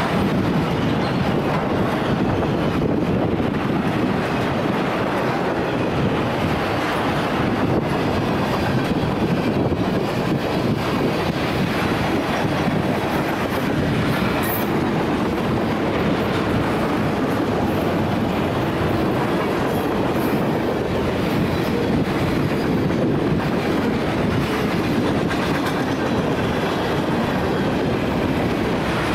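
A train's cars rolling past, a steady loud rumble of steel wheels on rail with clickety-clack.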